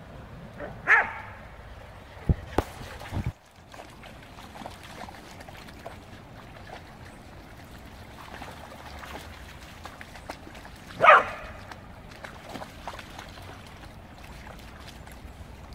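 A dog barks twice in play, one short bark about a second in and another about eleven seconds in, with a few sharp thumps between about two and three seconds in.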